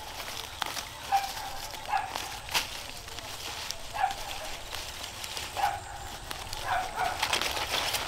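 An animal gives short, repeated calls about once a second, with a few sharp clicks or knocks among them.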